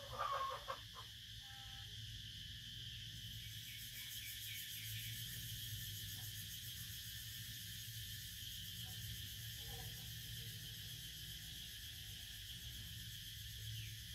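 Insects buzzing steadily and high-pitched, louder from a few seconds in, with a run of quick repeated chirps over a low steady hum. A brief louder call sounds at the very start.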